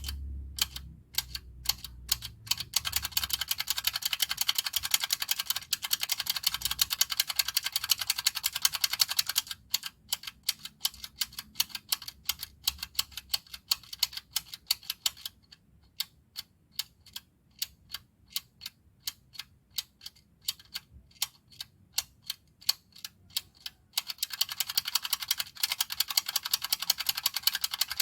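Handheld mechanical tally counter being clicked over and over, each press a sharp click. The clicks come in fast runs at the start and near the end, with slower, softer clicks of about two a second in the middle.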